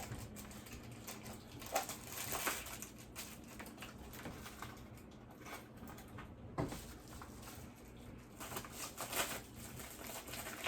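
Intermittent rustling and crinkling of packaging being handled, with a few light clicks.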